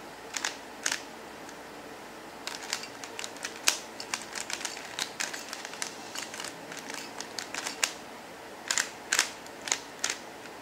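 Plastic QiYi Windmill puzzle cube being turned by hand, its layers clicking and clacking. A quick run of clicks in the middle is followed near the end by a few separate, louder clicks, over a steady hiss.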